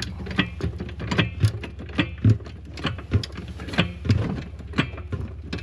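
Irregular metallic clicks and knocks, one or two a second, from a jack being worked under the tractor, over the steady hum of an engine idling.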